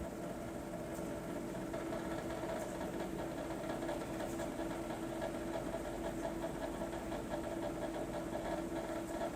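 Steady mechanical hum with a constant pitch, unchanging throughout.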